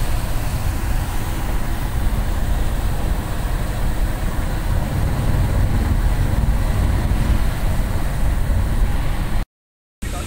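Steady road and engine rumble heard inside a moving bus, heaviest in the low end. It drops to dead silence for about half a second near the end, where the video cuts.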